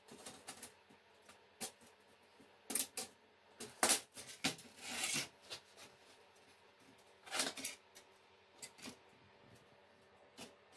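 Weld-mesh cage and steel wire being handled and worked with pliers: irregular sharp clicks, taps and clinks of metal, with a short scraping rattle about five seconds in.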